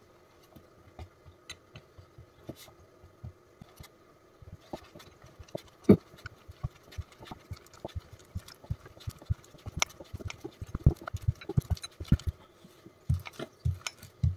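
Wooden rolling pin rolling out a stuffed paratha on a floured counter: a run of soft, irregular knocks and taps as the pin rocks and presses on the dough. The knocks are sparse at first, grow busier after about five seconds, and the loudest come about six and eleven seconds in.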